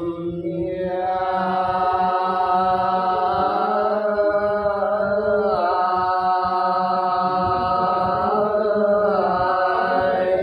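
A man singing a Sán Dìu soọng cô folk song without accompaniment, drawing out one long phrase on held notes. The pitch dips about halfway through and lifts again near the end.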